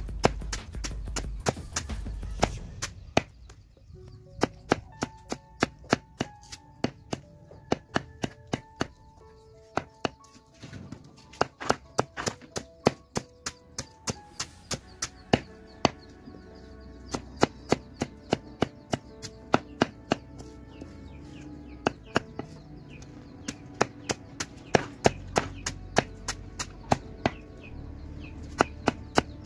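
Banana plant stem being chopped with a blade: a quick run of sharp chops, about two a second, with short pauses between runs. Background music with a melody plays under the chopping.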